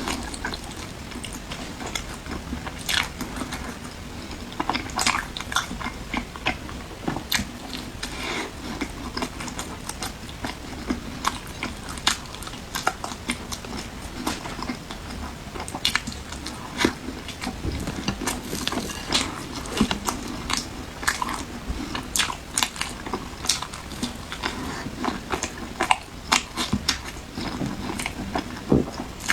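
Close-miked eating: irregular crisp bites and chewing, several sharp crunchy clicks a second.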